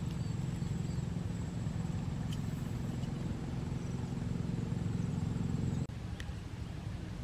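A steady low mechanical hum, like a motor running at a distance, with a thin high-pitched whine above it. Both drop abruptly about six seconds in, and a lower hum carries on after.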